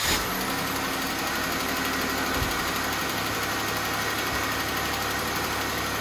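Jeep Wrangler's 3.6-litre Pentastar V6 idling steadily just after starting, with a tick from the top of the engine. This tick is common on these 3.6-litre engines, and the owner puts it down to the lifters and rocker arms.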